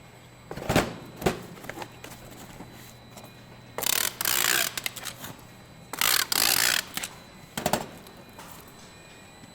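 Machinery sounds: a few sharp clicks and knocks, two hissing bursts about a second long, then more knocks, over a low steady hum.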